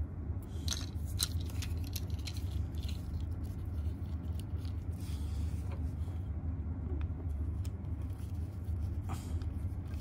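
Light clicks and scrapes of thin electrical wires being handled and twisted by hand, over a steady low background hum.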